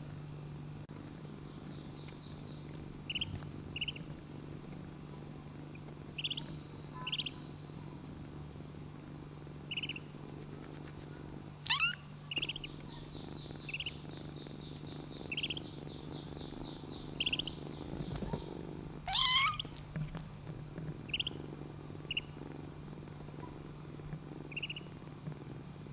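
Duckling peeping softly in short high chirps every second or two over a kitten's steady low purring. Two louder, longer sweeping calls break in about 12 and 19 seconds in.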